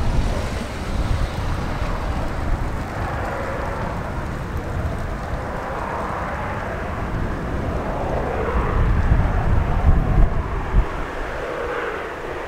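Pilatus PC-9's PT6A turboprop engine and propeller droning on final approach to land, growing a little louder as the aircraft nears, with a wavering pitch. Wind rumbles on the microphone underneath.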